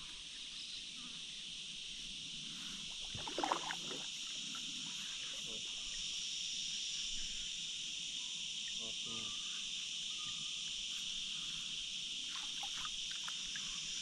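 Steady high-pitched drone of a chorus of insects, growing slightly louder, with a brief louder noise about three and a half seconds in.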